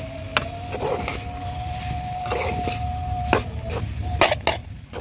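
Metal spatula stirring cut broad beans, potato and masala in a metal pot, scraping through the food and knocking against the pot rim several times.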